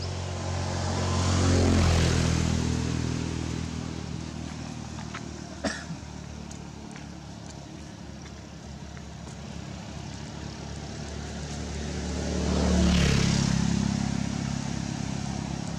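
Engine of a motor vehicle running, growing louder and fading about two seconds in and again near the end, with one short click in between.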